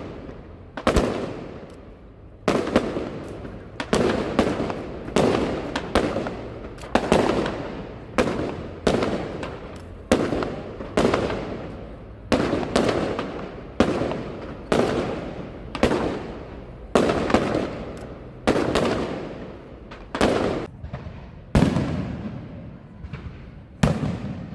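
A long, unbroken run of sharp bangs, roughly one a second at uneven spacing, each trailing off over a fraction of a second.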